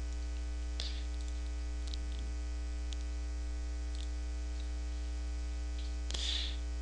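Steady electrical mains hum on the recording, with a few faint clicks from computer mouse clicks.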